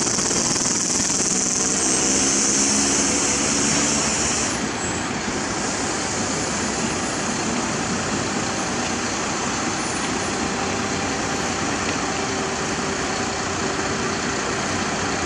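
Heavy vehicle engines running steadily amid road traffic noise. A high hiss cuts off about four and a half seconds in, and an engine drone with a clear pitch stands out for the first few seconds.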